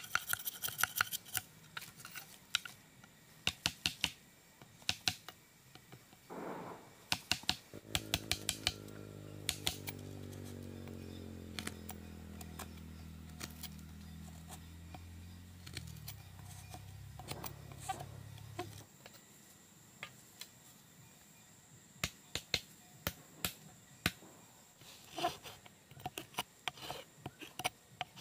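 Knife blade chopping and shaving into a green bamboo pole: a run of sharp clicks and taps, sometimes in quick groups. Through the middle a low drone with a slowly falling pitch sounds underneath, then stops.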